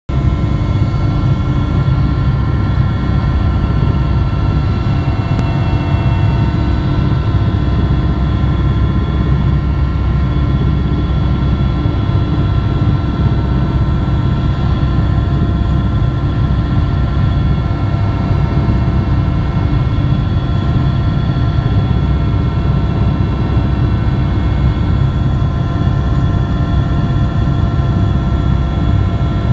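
Steady aircraft engine drone heard from inside the cabin in flight: a loud, unbroken deep rumble with several steady tones above it.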